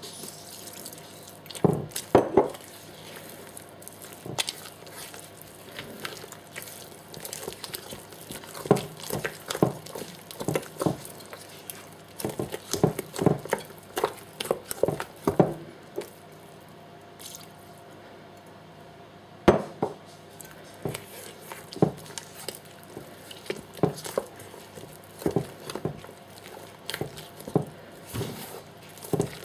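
Thick, wet cake batter being folded by hand in a mixing bowl: irregular soft squelching strokes with a brief lull in the middle and one sharper knock against the bowl.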